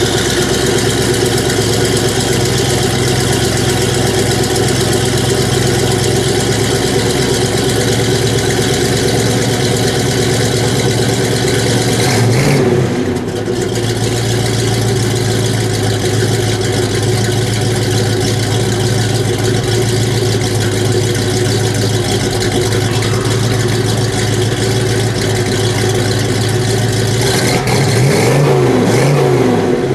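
1970 Ford Torino GT's 351 cubic-inch V8 idling steadily, freshly started. There is one quick rev about twelve seconds in and a few short revs near the end.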